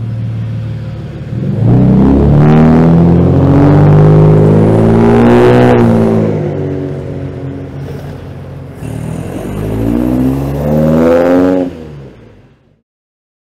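Car engines pulling away and accelerating past, the engine note rising as they speed up. A second car pulls away near the end before the sound cuts off suddenly.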